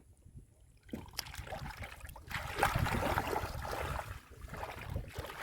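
Muddy shallow water sloshing and splashing with many small wet clicks as hands work through it, starting about a second in and growing louder about two seconds in.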